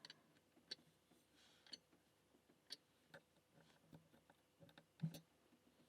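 Faint, scattered clicks of a pick and tension tool working inside a small brass padlock, about a dozen spread unevenly, with a somewhat louder knock about five seconds in.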